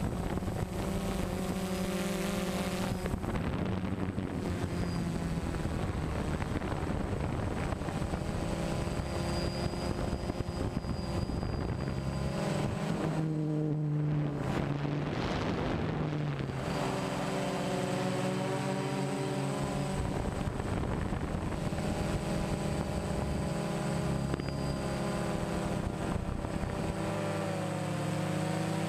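DJI Phantom 1 quadcopter's motors and propellers running in flight, heard from the camera on board: a steady whine of several tones whose pitches shift up and down every few seconds as the motor speeds change.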